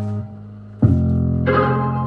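Music playing through ACV marine speakers on a listening test: sustained keyboard chords over a steady bass line, with a new chord struck just under a second in and another about half a second later.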